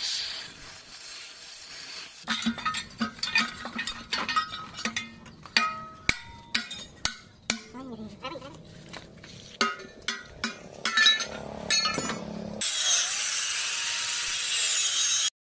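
Gas cutting torch hissing against a steel axle housing, then a long run of irregular hammer strikes on steel with short metallic ringing. Near the end an angle grinder runs against the housing with a steady hiss.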